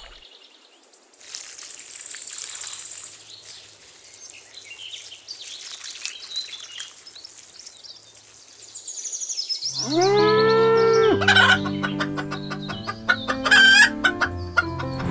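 A faint trickle of water poured from a small watering can. About ten seconds in, a rooster crows once with a long call that rises and is then held, and music begins straight after.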